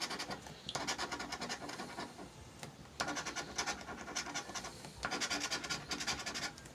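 Scratch-off lottery ticket being scratched in quick, rapid strokes, coming in several spells with short pauses between.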